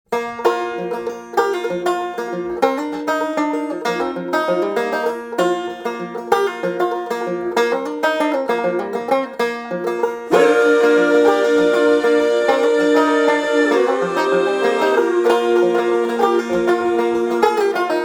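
Background music: fast picked banjo in a country or bluegrass style, becoming fuller and louder about ten seconds in.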